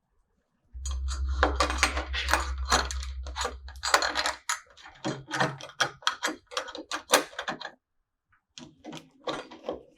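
Metal smart-lock parts clicking and clattering against a door as the exterior lock assembly is fitted into the bore, with a low rumble under the first few seconds. There is a brief pause near the end, then more clicks.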